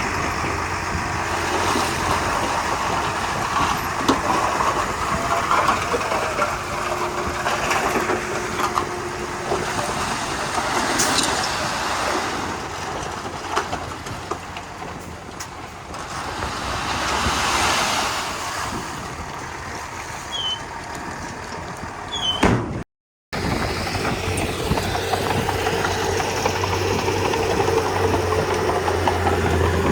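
Komatsu D31P crawler bulldozer working, its diesel engine running continuously and swelling and easing every few seconds with the load. The sound drops out completely for a moment about three quarters of the way through.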